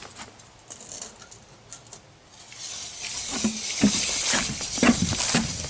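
Rustling and scattered clicks and knocks of close handling, getting louder about two and a half seconds in.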